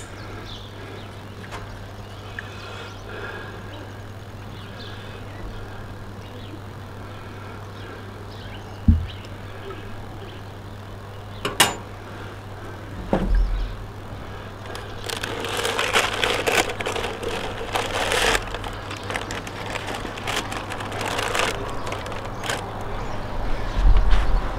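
Baking paper crinkling for several seconds as a loaf of bread is lifted out of a cast iron camp oven by its paper liner, after a few knocks and one sharp click. A steady low hum sits underneath.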